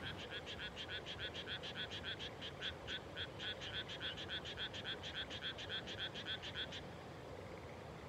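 A frog croaking in a long, fast, even series, about four or five calls a second, which stops near the end.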